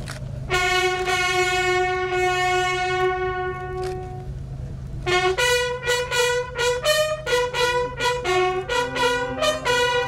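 Several military bugles playing a call together. It opens with one long held note, then after a short break comes a run of short notes stepping between a few pitches, ending on a lower held note.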